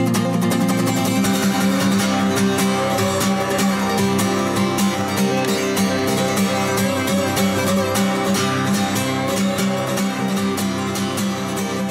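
Background music: strummed acoustic guitar playing a fast, busy rhythm.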